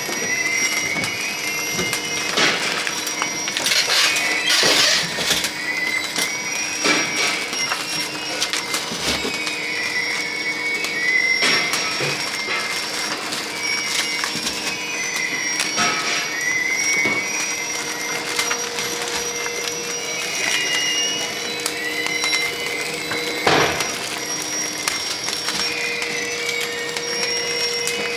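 Detergent-soap combo packing machine running, wrapping bars in film: a steady motor hum with irregular mechanical clicks and knocks, and short high squeaks every few seconds.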